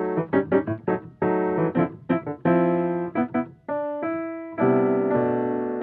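Background piano music: a run of struck chords and quick single notes, each ringing and fading before the next.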